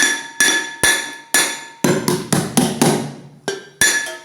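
A child banging on a drum kit: uneven strikes about twice a second, each leaving a ringing metallic tone.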